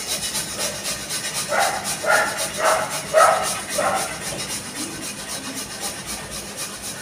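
Fresh ginger grated on a hand grater over a steel plate: a quick, even rasping of strokes, several a second. Between about one and a half and four seconds in, five short calls sound over it, about half a second apart.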